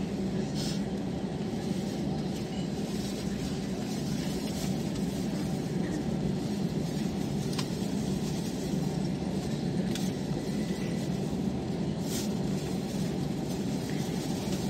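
Steady low rumble inside the cabin of an Airbus A320 rolling out on the runway after landing, its engines near idle and its wheels running on the runway as it slows to turn off.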